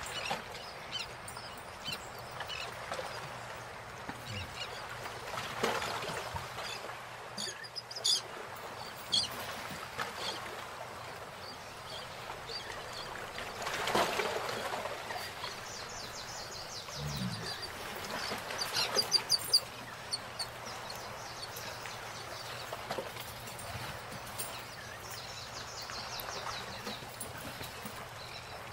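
Golden retriever chewing a guava, with scattered crunching and wet mouth noises. Short bursts of rapid, high chirps come twice in the second half.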